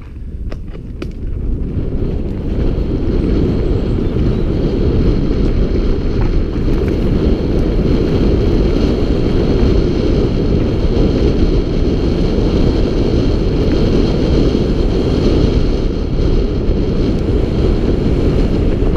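Wind buffeting an action camera's microphone while a mountain bike rides fast down a gravel trail, mixed with the rumble of tyres on loose dirt. It grows louder over the first couple of seconds as speed builds, then holds steady.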